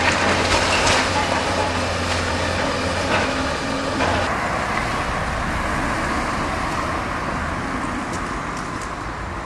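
Tracked excavator's diesel engine running steadily, with a few sharp knocks and cracks of demolition rubble in the first four seconds. After that the sound turns to a steadier, duller engine noise.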